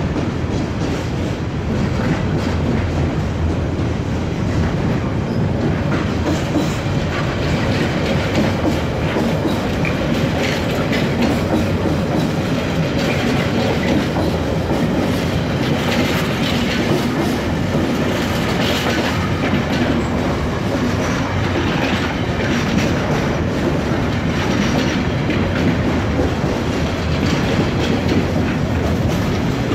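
Freight train of container flat wagons and sliding-wall boxcars rolling past close by in a steady, unbroken run, wheels clattering over the rails.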